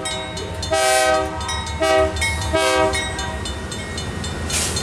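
Diesel locomotive air horn sounding three blasts, one long and then two shorter, over the low rumble of the locomotives' diesel engines. A short hiss comes near the end.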